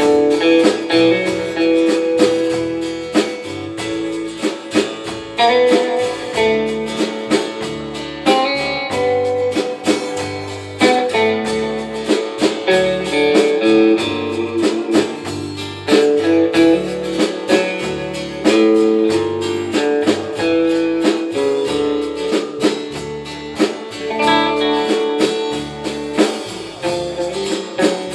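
Live rautalanka band playing an instrumental: electric lead guitar carrying the melody over strummed rhythm guitar, bass guitar and a drum kit.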